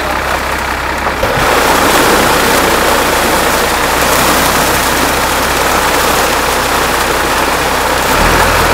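A mass of mullet thrashing and splashing in a seine net drawn tight in shallow water, a continuous churning splash that grows louder about a second in. Under it is a steady low hum of a motor running.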